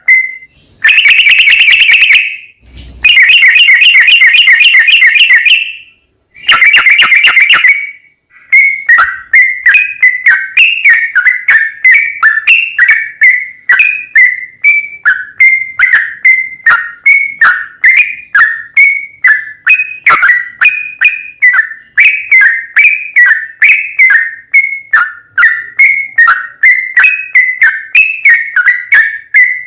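Yellow-vented bulbul (trucukan) singing: three fast bubbling trills in the first eight seconds, then a long, even run of short chirps that drop in pitch, about two to three a second.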